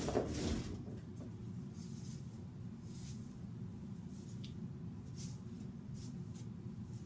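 Short soft swishes of hair and sweater sleeves rustling as hands smooth and arrange a wig, coming about once a second, over a steady low room hum. A louder handling noise comes right at the start.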